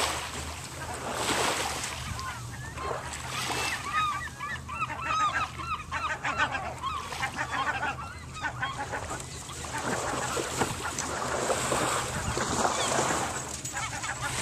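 Many short, pitched bird calls in quick succession, thickest through the middle, over a steady hiss.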